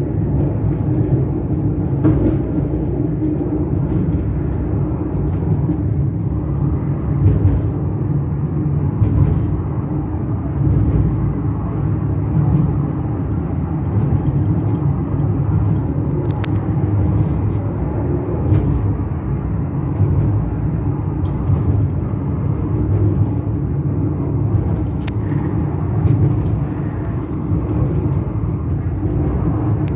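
Parsenn funicular car running downhill on its rails: a steady low rumble, with a few short clicks at irregular moments.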